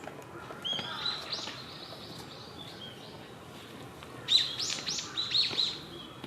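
Tits calling: a short high call about a second in, then a quick run of sharp, high chirps a little after four seconds, the loudest part.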